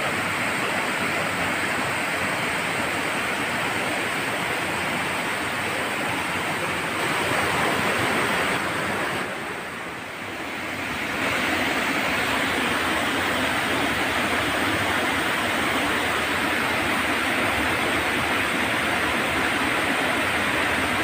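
Shallow river water rushing and churning white over rocks, a steady rush that dips for a moment about ten seconds in.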